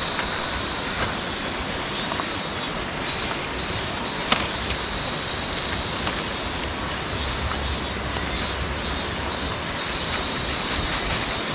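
Steady outdoor ambience: a constant wash of noise, with high-pitched chirring that comes and goes in short pulses and a few sharp clicks.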